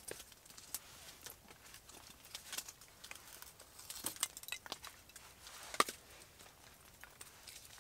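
Open spruce-wood fire crackling with scattered sharp pops and ticks, with light knocks of wood as a split log is laid on the fire; a cluster of pops comes about four seconds in and the loudest single snap about six seconds in.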